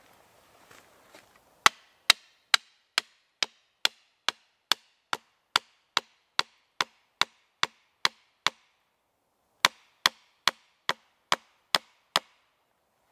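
A hatchet strikes the top of a wooden stake over and over, driving it into the ground, with sharp wooden knocks at about two a second. There are about seventeen blows, a brief pause, then about seven more.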